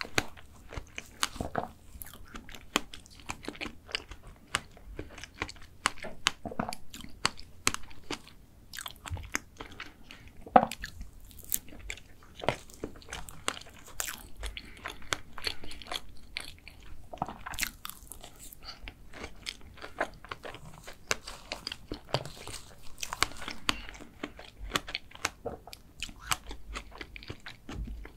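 Close-miked chewing of a soft layered strawberry chocolate cream dessert, with many sharp wet mouth clicks and a spoon scooping from its plastic cup.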